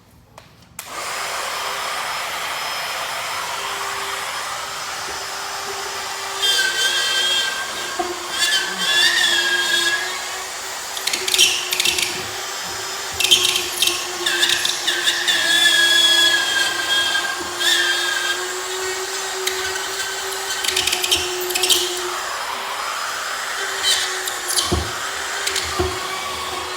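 A handheld power tool starts about a second in and runs at a steady pitch. It grinds louder in repeated passes as it cuts into drywall to expose a buried electrical box.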